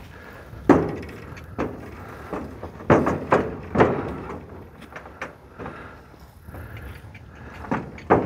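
Hooves of horses shifting inside a metal stock trailer, knocking and clanging on its floor and sides in about ten irregular hard knocks with short ringing after them.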